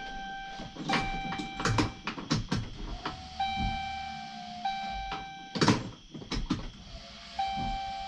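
Truck's dashboard warning chime sounding with the key on and the cab door open: a steady electronic tone held about a second, repeated about four times. Sharp knocks and clicks fall between the chimes, the loudest a little over halfway through.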